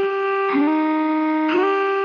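Music: a slow melody of long held notes in a wind-instrument-like tone. The pitch steps down about halfway through and back up near the end.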